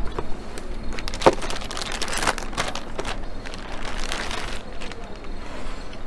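A motherboard being unpacked from its cardboard box and packaging: rustling and handling noise, with a few sharp clicks and knocks about a second in.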